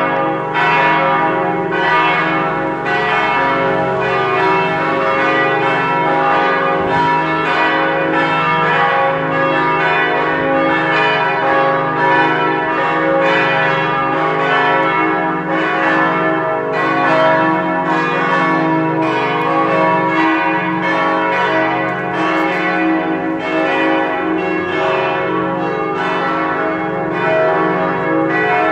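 Full peal of four church bells tuned C♯, E, F♯ and G♯, all ringing together in continuous overlapping strokes with a steady, even level.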